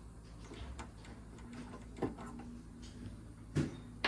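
Small clicks and knocks of a torque tool and burs being handled inside a CEREC milling unit while an old bur is unscrewed, with two sharper knocks about two and three and a half seconds in over a low steady hum.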